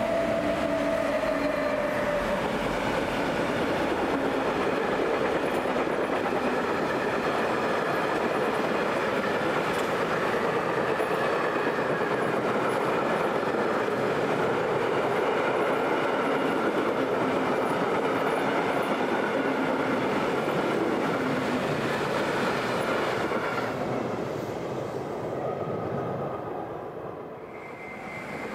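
Container freight train hauled by two ÖBB Taurus electric locomotives passing close by, its wheels and wagons making a loud, steady rolling noise. A whine from the locomotives falls in pitch as they go by at the start. The noise dies away about 24 seconds in, and a higher whine comes in at the very end as an electric multiple unit approaches.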